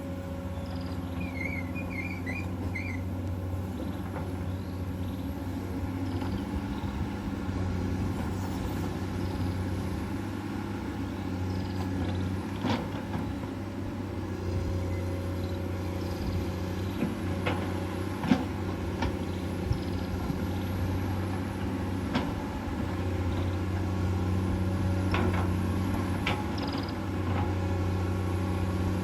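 Komatsu PC200-8 excavator's six-cylinder diesel engine running under digging load, its note swelling and easing as the hydraulics work, with a few sharp knocks from the bucket and arm.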